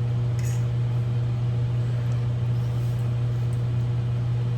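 A steady low hum with no change in pitch or level, with a faint brief sound about half a second in.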